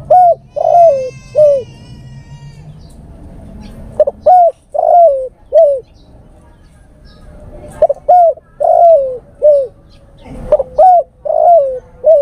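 Male spotted dove cooing its call to females: a phrase of about four short coos, each sliding down in pitch, repeated four times about every three to four seconds.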